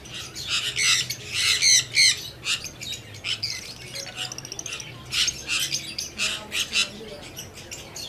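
Caged blue masked lovebirds squawking: many shrill, rapid calls overlapping, densest in the first two seconds and again around five to seven seconds in.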